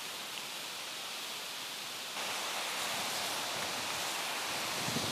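Steady rushing of river water, an even hiss-like noise that gets louder about two seconds in.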